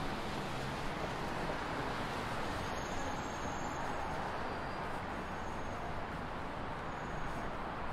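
Steady city street traffic: an even rush of passing vehicles with no single event standing out.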